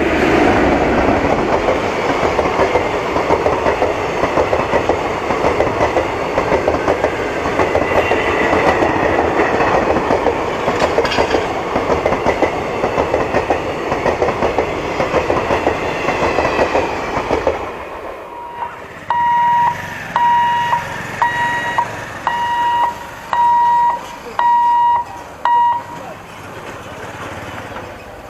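Teesta Torsa Express passenger train passing: a loud rumble with a fast clatter of wheels on the rails, which fades out about eighteen seconds in. After that a high beep sounds about eight times, evenly spaced.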